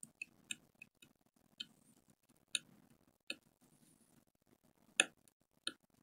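Faint, irregular light clicks of a small hand tool against a phone motherboard while the damaged USB-C charging-port pads are cleaned: about ten sharp ticks, the loudest about five seconds in.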